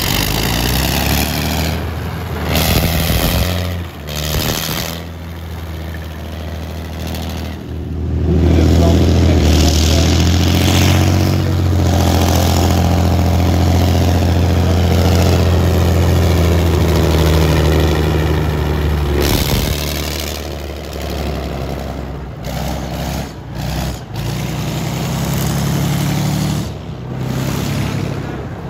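ISU-152 self-propelled gun's V12 diesel engine running as the tracked vehicle drives past. It is loudest through the middle stretch, where it passes closest, and its note rises and falls with the throttle.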